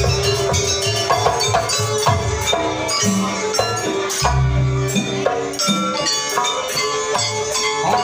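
Live Javanese jaranan ensemble music with hand drums and keyboard, playing a steady dance rhythm of pitched notes over low drum beats.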